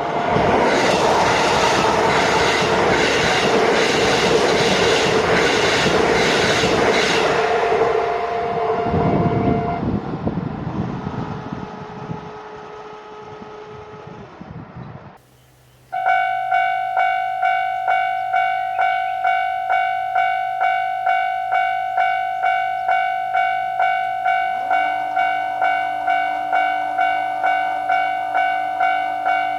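A Japanese level crossing's warning bell ringing while a train runs past over the crossing, the train noise dying away over several seconds. After a brief break the crossing bell starts again, ringing about twice a second, and a lower steady tone joins it near the end.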